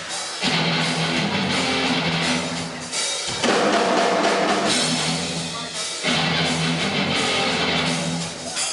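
Live heavy metal band playing an instrumental: electric guitar and drum kit hammer a riff in repeated phrases of about three seconds, each starting with a hit after a brief drop.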